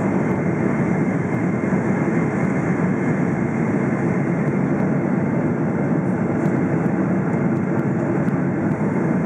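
Steady cabin noise of a Boeing 777-300ER in flight: an even rush of its GE90 engines and the airflow, heard from inside the cabin.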